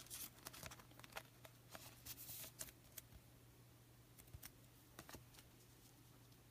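Faint rustling and light clicks of a baseball card being handled and slid into a plastic card sleeve, most of it in the first three seconds, over a faint steady low hum.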